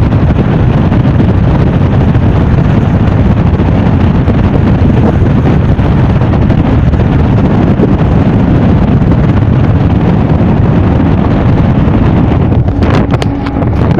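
Loud, steady wind rush buffeting the phone's microphone from a vehicle moving at speed, mixed with road noise. About a second before the end, a few sharp clicks and a faint steady tone come in.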